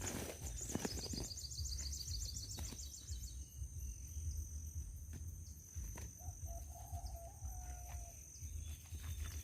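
Outdoor ambience with a bird's rapid trill of repeated high notes lasting about two and a half seconds near the start, over a steady high-pitched whine. A short lower call comes about six seconds in, with scattered knocks and low rumble throughout.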